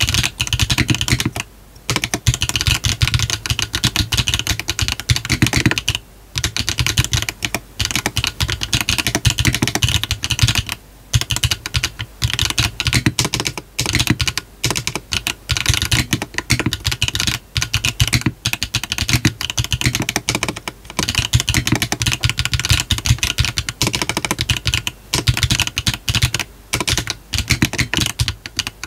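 Continuous typing on a brass-bottomed GDK DK1-TKL custom mechanical keyboard fitted with HMX 幻紫 linear-style switches on a 1.6 mm PCB, no foam and hard wide gaskets, with cherry-profile PBT keycaps: fast runs of key clacks broken by a few brief pauses.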